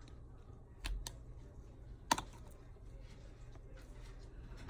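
A few small sharp clicks and taps of a pry tool on the opened smartphone's plastic parts as its bottom piece is lifted, the loudest about two seconds in, over a low steady hum.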